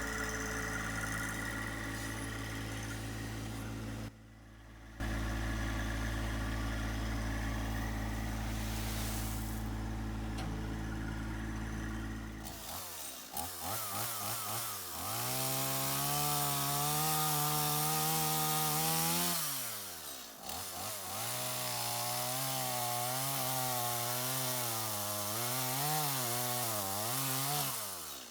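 A John Deere 1025r compact tractor's three-cylinder diesel idles steadily, with a brief break about four seconds in. About halfway through, a chainsaw starts and revs up. It holds high, dips briefly, then rises and falls again and again as it cuts.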